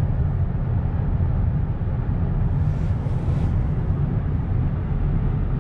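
Steady low rumble of road and engine noise inside a pickup truck's cab cruising at highway speed, with a faint brief hiss about three seconds in.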